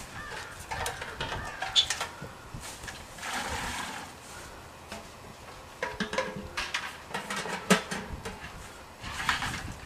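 Maple sap being collected by hand: a metal sap bucket clanks and is poured into a plastic pail about three to four seconds in, among footsteps and handling in dry leaves. Scattered knocks and a few short squeaks come from the buckets being handled.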